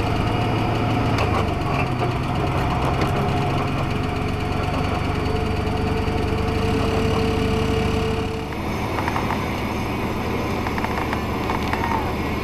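Plow truck's diesel engine running while driving, heard from inside the cab as a steady low rumble with a thin steady whine in the middle. The sound drops and changes abruptly about eight seconds in.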